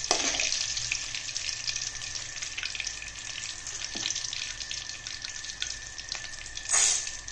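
Mustard seeds, dried red chillies, garlic and shallots frying in sesame oil in an aluminium kadai: a steady sizzle with fine crackling, fading slightly. A steel ladle knocks the pan once about four seconds in, and a brief louder rush of sizzling comes near the end as urad dal is tipped into the hot oil.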